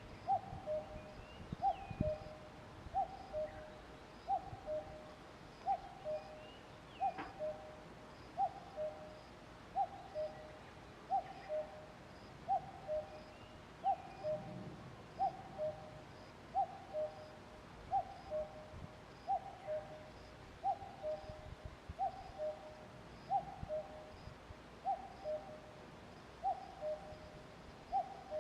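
Common cuckoo giving its two-note "cuck-oo" call over and over, a higher note falling to a lower one, about once every second and a half. A few faint chirps from other birds come in now and then.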